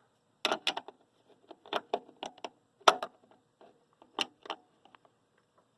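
A string of sharp clicks and knocks, about eight of them, irregularly spaced, like small hard objects being handled or set down.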